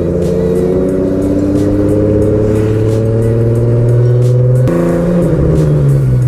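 2011 Ford Mustang's 3.7-litre V6 pulling through a gear, its note slowly rising, then dropping sharply about four and a half seconds in as the manual gearbox is shifted up, and pulling on at lower revs. It is loud, running through an exhaust whose axle-back section has come loose, heard from inside the cabin.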